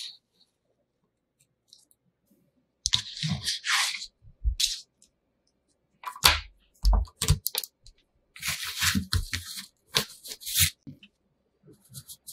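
Small magnetic balls clicking and crackling against each other in irregular bursts as a large ball-built model is handled, with a few dull knocks as it is set down onto plastic stands.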